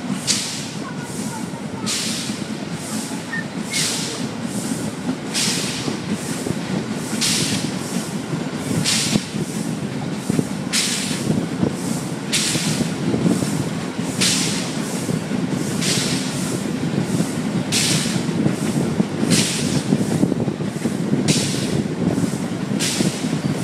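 Steam locomotive exhaust beats, heard from a carriage farther back in the train, chuffing in even pairs about every two seconds over the steady rumble of the carriage wheels on the rails as the train runs at low speed.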